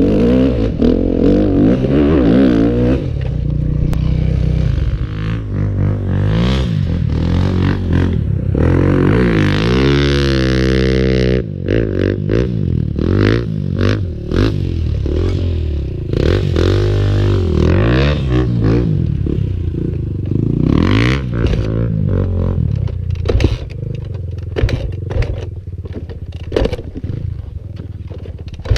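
Yamaha YZ dirt bike engine running under throttle, its pitch rising and falling again and again, with one long climb and drop about ten seconds in. Sharp clattering knocks come through, more often near the end.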